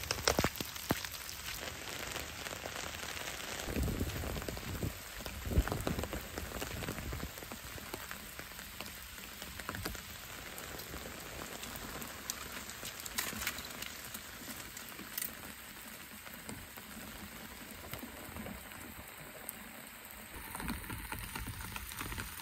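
Steady rain falling, with a few footsteps of rubber boots in wet grass and mud in the first several seconds.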